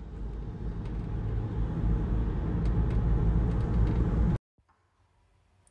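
Low, steady rumble of a car driving along a road, heard from inside the vehicle; it cuts off suddenly about four seconds in.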